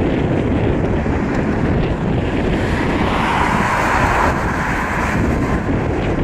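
Boeing 777-200ER's twin General Electric GE90 turbofans at takeoff power during the takeoff roll: a steady jet roar, with a higher rushing tone that swells about halfway through as the aircraft nears.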